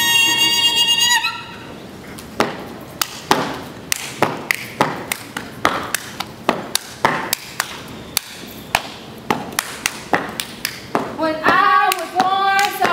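Step routine: sharp stomps and hand claps on concrete in an uneven rhythm, about two strikes a second. It opens with one high held vocal call and gives way to voices chanting together near the end.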